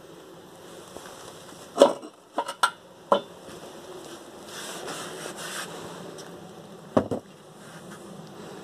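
Steel wheel hub and bearing parts clanking and knocking as they are handled and set down: a loud knock about two seconds in, a quick run of clinks right after it, and another knock near the end, over a steady low hum.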